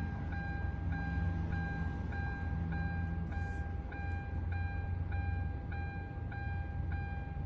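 Repeating electronic warning chime, short beeps at about two a second, over a steady high tone and a low hum.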